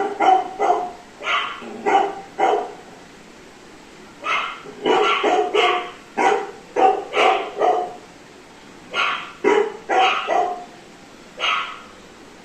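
A dog barking: short, quick barks in three bouts with brief pauses between them.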